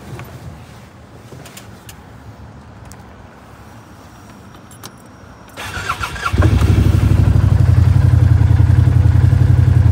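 Arctic Cat Prowler 1000 side-by-side's 951 cc V-twin cranked over after a few faint clicks, catching after a short crank about six seconds in, then idling loud and steady through its dual-tip exhaust.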